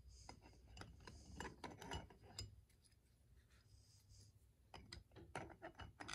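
Faint clicks and light taps of metal engine parts being handled: a cylinder head being lifted and fitted back over the cylinder studs, with the clicks coming thicker near the end.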